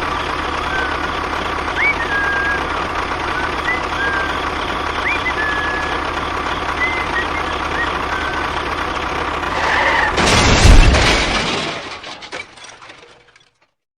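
A DIY mini tractor's small motor running steadily with a constant whine, birds chirping over it. About ten seconds in comes a loud, low thump and rumble, which fades and then cuts off.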